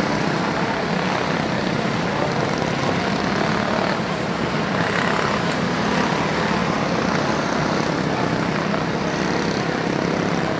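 A pack of quarter midget race cars with small Honda engines racing around a small oval, many engines buzzing at once in a steady drone.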